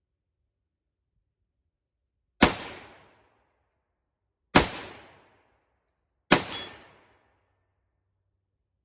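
Three single shots from a KUSA KR-103 AK-pattern rifle, about two seconds apart, each followed by a short fading echo.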